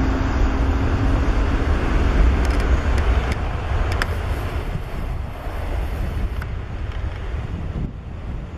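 Jet engine noise of a Boeing 737-8 MAX on its takeoff roll: its CFM LEAP-1B turbofans at takeoff thrust make a low rumble that fades slowly as the jet runs away down the runway.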